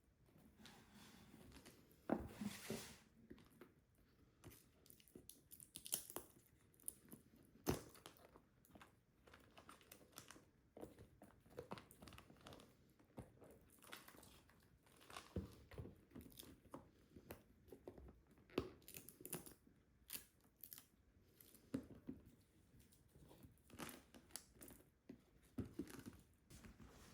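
Packaging handled during an unboxing: scattered crinkling and tearing of wrapping, with light taps and knocks and a sharper knock partway through.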